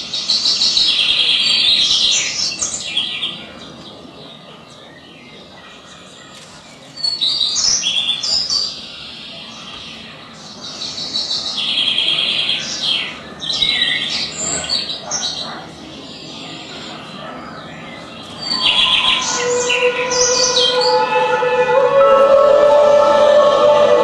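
Recorded birdsong playing in repeated bursts of high chirping that starts abruptly. About 19 seconds in, music with long held notes comes in under it and grows to the loudest sound.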